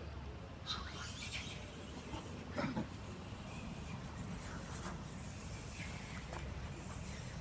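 A macaque gives one short call about two and a half seconds in, over a steady low background rumble.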